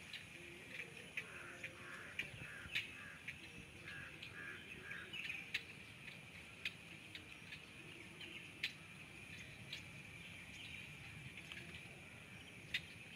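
Faint marsh ambience: a steady high insect drone, with birds calling now and then and scattered sharp clicks.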